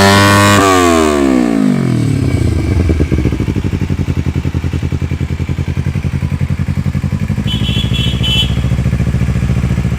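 2010 Kawasaki Ninja 250R's parallel-twin engine through a Yoshimura R-77 exhaust, held at high revs, then let go about half a second in. The revs fall away over a second or so and it settles into a steady, lumpy, pulsing idle.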